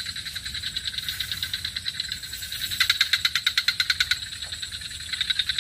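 A dusk chorus of calling animals: a rapid pulsing trill, about ten pulses a second over a steady high hiss, that swells louder about three seconds in.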